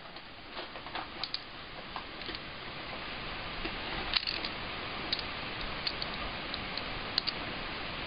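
A few faint, irregular metallic clicks of a steel socket being handled and pushed onto a ratchet, over a steady hiss.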